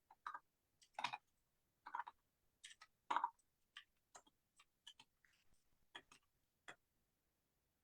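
Near silence broken by faint, irregular clicks and taps, about a dozen of them scattered through.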